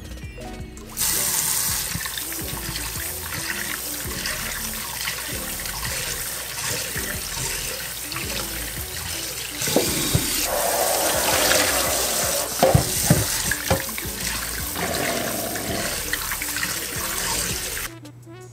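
Tap water running into a glass bowl in a kitchen sink while raw shrimp are rinsed by hand. It starts about a second in and cuts off near the end. Several sharp knocks come partway through.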